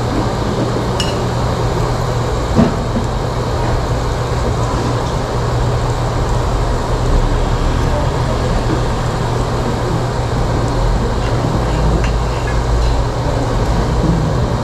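Steady low hum and rushing background noise of a restaurant dining room, with a few light clinks of a knife and fork against a plate. The sharpest clink comes about two and a half seconds in.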